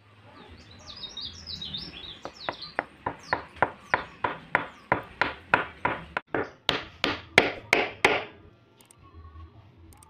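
Birds chirping over a steady background hiss, then a quickening run of about two dozen sharp, evenly spaced clicks that grows louder and stops abruptly.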